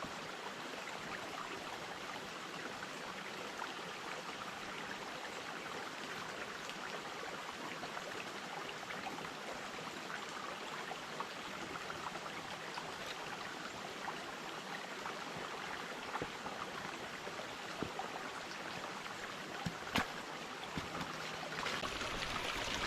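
Small creek running over rocks: a steady babble of water that gets a little louder near the end, with a few faint clicks, the sharpest about twenty seconds in.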